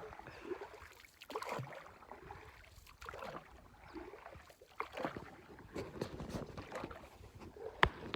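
Soft, irregular water splashing and lapping from a small canoe moving along, a light splash every second or so, with one sharp knock near the end.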